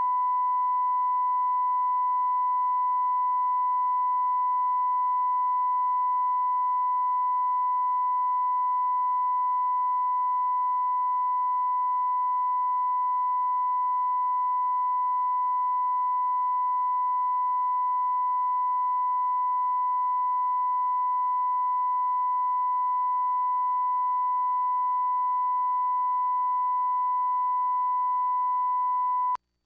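Broadcast line-up tone at 1 kHz played with colour bars: one unbroken, steady pitch at an even level, cutting off suddenly just before the end.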